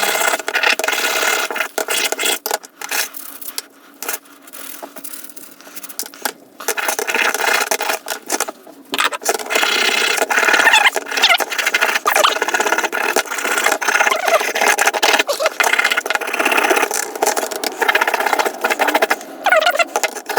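A wire brush scrubbing a vinegar-soaked, rusty Record G-clamp: rough scratching in spurts with short breaks between them, stripping loosened rust from the metal.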